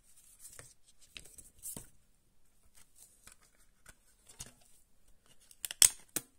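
Plastic CD jewel case being handled and opened, with scattered light clicks and rustles. Near the end comes a quick cluster of louder, sharp plastic clicks as the disc is lifted off the tray's centre hub.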